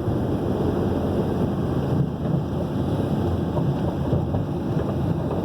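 Steady road and engine rumble of a vehicle driving along at speed, with wind noise.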